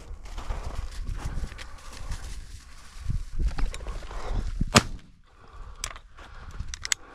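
Rustling and brushing through field cover with a low rumble on the microphone, and one sharp crack about two-thirds of the way through, followed by a few smaller clicks near the end.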